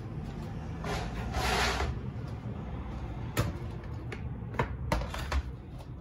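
A brief rustle about a second in, then a handful of sharp clicks and knocks over a low steady rumble.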